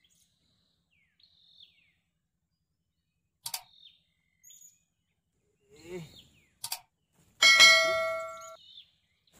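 A single loud metallic ding about three-quarters of the way through, ringing out and fading over about a second. Before it come a few sharp clicks, and short falling bird chirps repeat quietly throughout.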